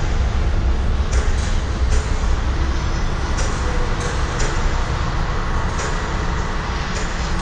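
A rail car running on its track: a steady, deep rumble with irregular sharp clicks and clanks about once a second.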